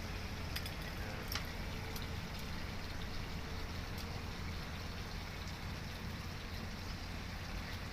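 Steady rush of flowing river water, under a low rumble, with a few faint clicks.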